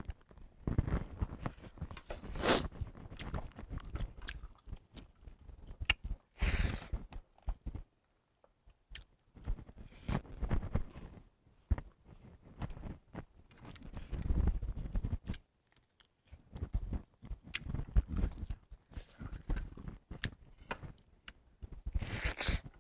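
Close-up chewing and biting of food: irregular wet, crunchy mouth sounds with short pauses between bites.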